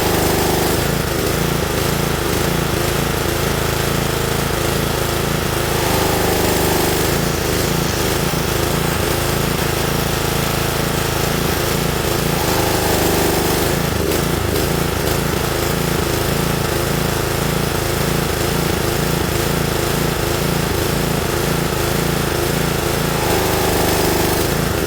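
Pressure washer running steadily, a constant mechanical hum with spray noise.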